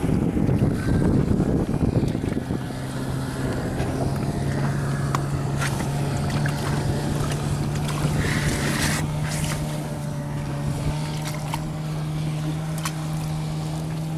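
Small outboard motor running at a steady, unchanging pitch, with choppy water and wind on the microphone. The wind and water noise is loudest in the first two seconds or so.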